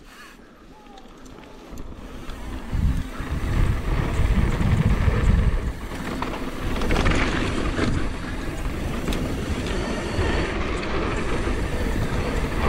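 Mountain bike riding down a gravel trail: wind buffeting the microphone and tyres rolling over loose gravel. Quiet at first, it builds over the first few seconds as the bike gathers speed, then stays a steady rush with a deep rumble.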